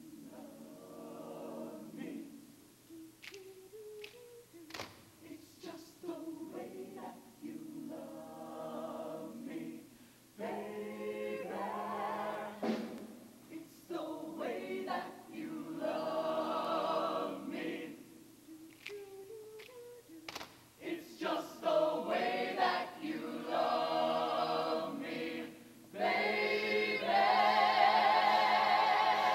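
Mixed show choir singing in harmony, in phrases broken by short pauses, building to a loud held chord near the end.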